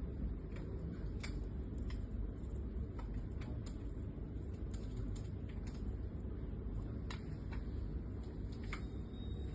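Light, irregular clicks and ticks of a small screwdriver and tiny screws against an airsoft revolver cylinder as the screws are driven back in, over a steady low hum.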